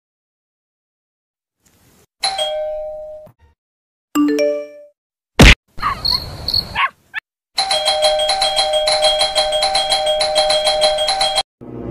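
A string of comedy sound effects: a two-tone doorbell ding-dong about two seconds in, a few quick falling notes, a single sharp loud click, then a doorbell rung over and over rapidly for about four seconds in the second half.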